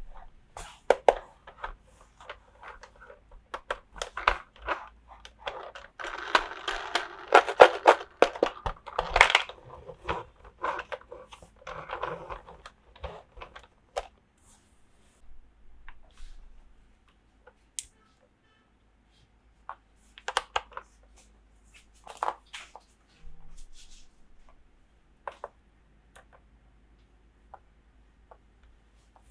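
Toy pieces and packaging being handled: scattered sharp clicks and taps, a busier stretch of rustling and clicking in the first third, a near-quiet pause past the middle, then a few more clicks.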